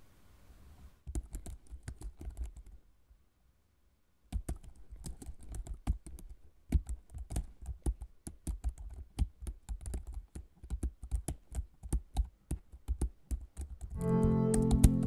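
Typing on a computer keyboard: quick runs of key clicks, a pause of about a second some three seconds in, then steady typing. Music comes in near the end.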